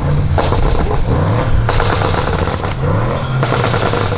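Audi RS6 Avant C8's twin-turbo 4.0 V8, decat Capristo exhaust with the particulate filter removed, revving up and down several times, with a few sharp pops and crackles from the exhaust.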